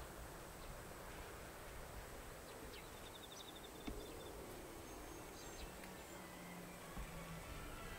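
Faint, steady outdoor background noise, with a brief high, rapid ticking trill about three seconds in and a few faint clicks.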